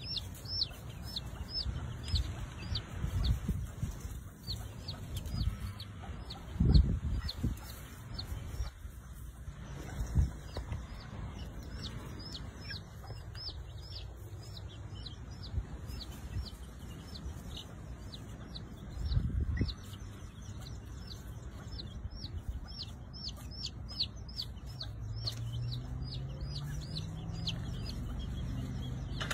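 Young chicks peeping, a steady string of short, high, falling peeps about three or four a second. A few dull low thumps and a low rumble sound under them, the loudest thump about seven seconds in.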